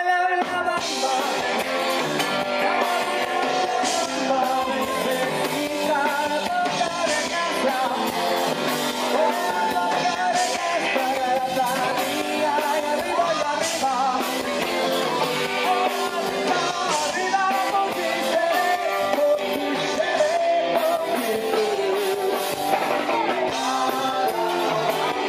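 Live rock band playing with electric guitars, drums and a lead singer. The sound is thin, with little bass.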